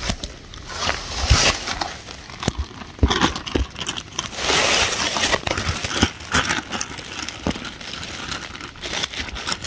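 Plastic bags crinkling and rustling as they are handled, with dry leaves crackling underfoot.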